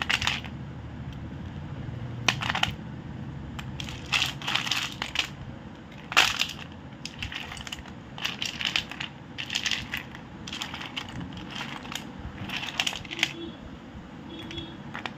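Hard chunks of roasted clay clattering and clinking against one another as a hand rummages through and scoops up a plateful, in short irregular bursts every second or so.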